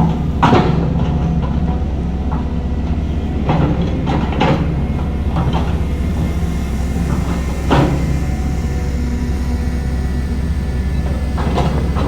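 Diesel engine of heavy earthmoving equipment running steadily, with irregular metallic clanks and knocks from the working machinery, several of them about half a second in, around the middle and near the end.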